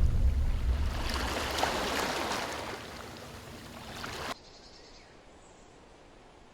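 Steady rushing of running water, gradually fading, then cut off abruptly a little past the middle, leaving a faint quiet background.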